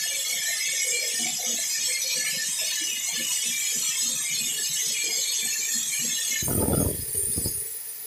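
Sawmill band saw cutting lengthwise through a teak slab: a dense, hissing rasp with rattling. About six and a half seconds in the cutting noise drops away under a brief loud low rumble.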